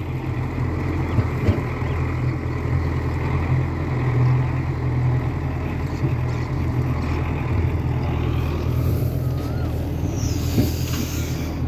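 Belarus tractor's diesel engine running steadily while towing a trolley loaded with threshed wheat, with a brief hiss near the end.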